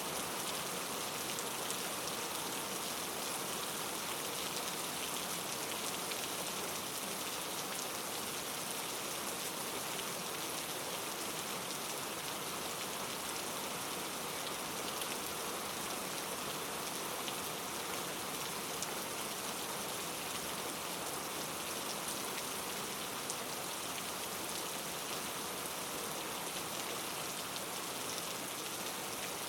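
Steady rain falling and pattering on a surface, a continuous even hiss with faint scattered drop ticks.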